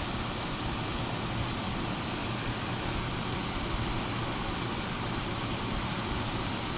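1978–79 GE Sahara 14-pint dehumidifier running steadily: fan airflow with a low, even hum from its Aspera (Tecumseh AE-type) compressor. It is fully charged and working normally, the compressor running quietly without vibration.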